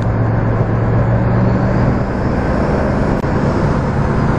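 Steady drone of a turbocharged 5.3 L V8 car driving at highway speed, heard inside the cabin with road and wind noise.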